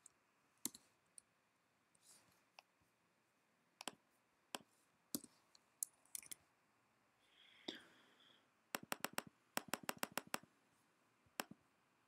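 Faint clicks of a computer mouse and keyboard: scattered single clicks, then two quick runs of clicks about nine and ten seconds in.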